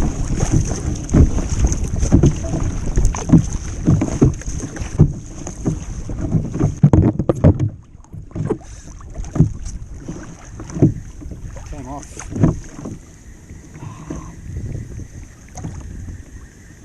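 Kayak at sea: water slapping and knocking against the hull with wind buffeting the microphone, busy with heavy knocks for the first half and calmer from about halfway.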